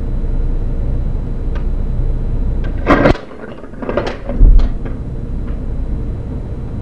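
Marcel curling iron dropped: a sudden sharp knock about three seconds in, then a few smaller knocks and a heavy thump about a second and a half later, over a steady low rumble.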